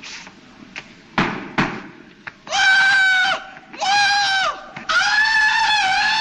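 Two sharp knocks about a second in, then a high, yodelling Tarzan-style jungle yell in three long calls, the last one running on.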